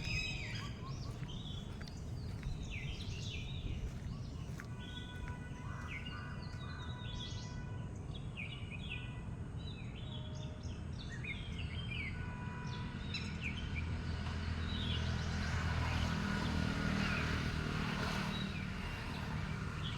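Several small birds chirping and calling in quick short notes, over a steady low outdoor hum; in the second half a low rumble swells and then eases off.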